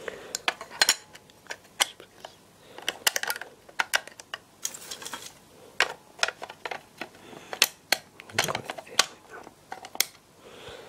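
Irregular small clicks and taps of hard plastic: the break-glass element being fitted into an old Labcraft KAC break-glass fire alarm call point and pressed by a finger.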